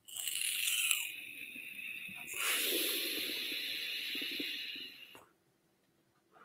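Breath hissing through an e-cigarette as a man draws on it and blows out vapour: two long, airy stretches of a couple of seconds each, ending abruptly about five seconds in.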